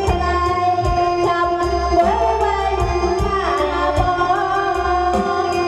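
Amplified live-band music: a steady percussion beat under a melody line that slides in pitch, with singing.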